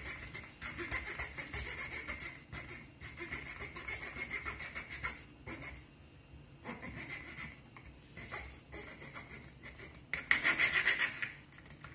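A knife blade sawing back and forth through the plastic pillar of a whisky bottle's plastic stopper, in a run of short strokes. The strokes pause briefly about halfway and come louder near the end.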